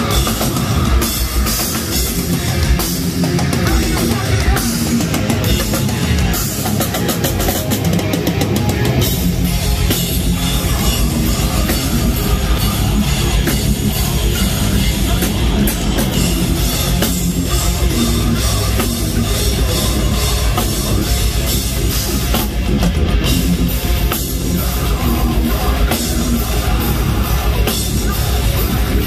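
Deathcore band playing live: heavily distorted guitars, pounding drums and a screamed vocal. About nine seconds in, the choppy low end gives way to a continuous heavy rumble.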